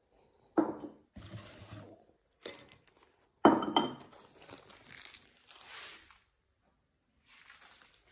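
Ceramic pieces of a small chocolate fondue set knocking together and onto a wooden table, a few sharp clinks with the loudest about three and a half seconds in. The plastic sleeve holding the fondue forks crinkles between the knocks.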